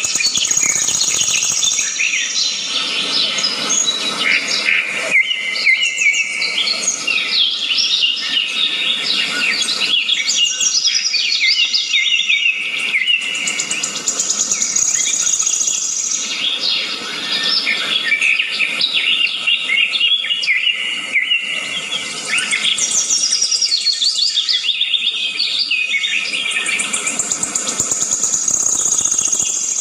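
A chorus of many birds singing and chirping at once: overlapping high chirps and falling trills with no break.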